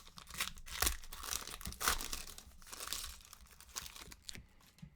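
Trading-card pack wrappers crinkling and tearing as packs are ripped open, with irregular sharp crackles.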